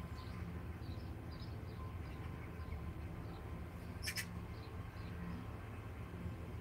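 Outdoor ambience: small birds chirping faintly here and there over a steady low hum, with one short sharp sound about four seconds in.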